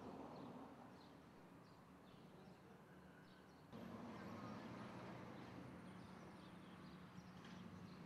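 Near silence: faint outdoor street ambience with a steady low hum and a few faint bird chirps. The background steps up slightly about four seconds in.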